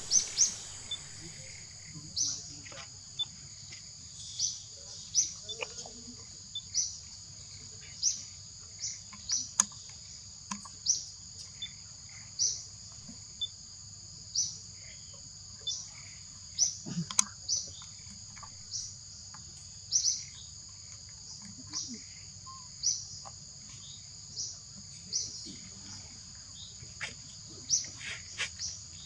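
Outdoor forest ambience: a steady high insect drone with short, high chirps repeating roughly every second and a half, and a few faint clicks.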